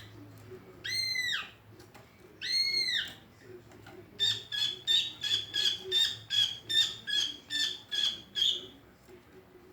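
Cucak ijo (green leafbird) calling: two arched whistles, each rising then falling, then about four seconds in a fast run of short notes on one pitch, about three a second, that stops near the end.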